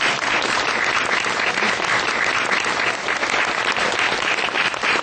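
A seated audience applauding, many hands clapping at once at a steady level.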